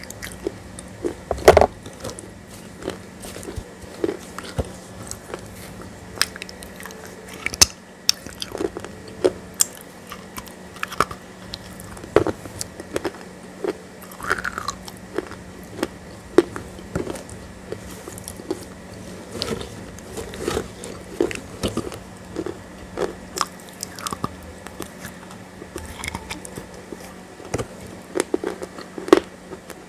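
Close-miked mouth sounds of a person chewing and crunching a thick grey paste, with irregular sharp crunches and wet smacks, over a steady low hum.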